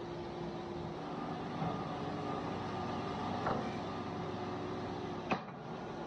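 Wood-Mizer LT70 band sawmill running steadily, with a few light knocks and one sharper knock about five seconds in as sawn boards are handled on its roller table.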